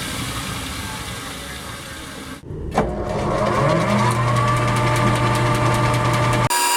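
Electric machine-tool motor running and slowly winding down, switched off about two and a half seconds in, then switched on again with a click and spinning up to a steady hum within about a second. The sound cuts off suddenly near the end.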